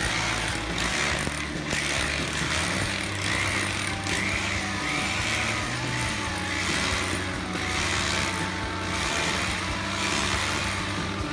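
Background music with held low notes and a swelling figure that repeats about once a second.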